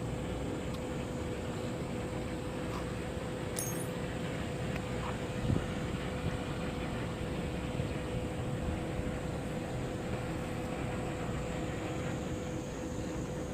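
Boat engine running steadily: a constant hum over a low rumble, with a brief thump about five and a half seconds in.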